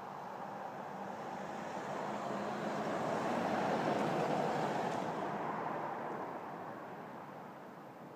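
A vehicle passing by: an even rushing noise that swells to a peak about halfway through and fades away.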